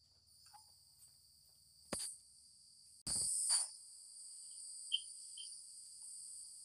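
Faint, steady, high-pitched background trilling, insect-like, that grows louder after a short knock about three seconds in; another short knock comes about two seconds in.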